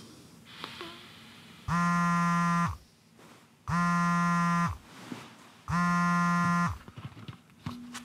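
Mobile phone buzzing with an incoming call: three buzzes, each about a second long, two seconds apart.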